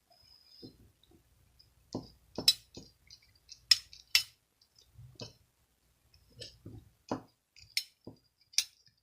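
Hard objects clinking and tapping against each other, about ten separate sharp clinks at irregular spacing, some with a brief high ring.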